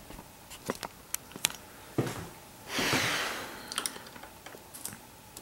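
Scattered light clicks and taps from a small screwdriver and the plastic and metal parts of a laptop screen assembly as its screws are being removed. There is a short breathy rush about three seconds in.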